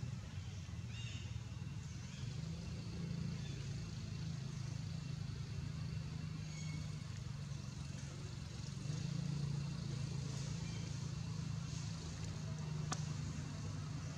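A motor running at a steady low hum, with faint high chirps now and then and a single sharp click about 13 seconds in.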